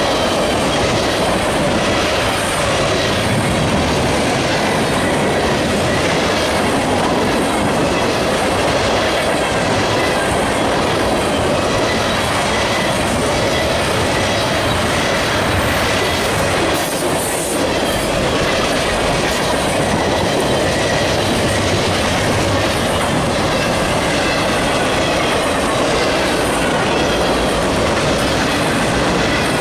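Freight train cars, tank cars, boxcars and autoracks, rolling past: a steady rumble of steel wheels on rail with a repeating clickety-clack as the wheels pass over rail joints.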